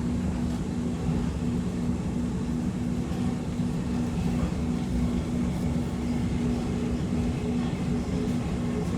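X'Trapolis 2.0 electric suburban train running between stations, heard from inside the carriage: a steady low rumble with a constant hum.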